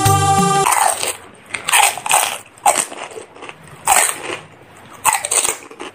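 A person eating crisp fuchka (pani puri): a string of irregular, noisy crunching and breathy mouth sounds, a dozen or so over a few seconds.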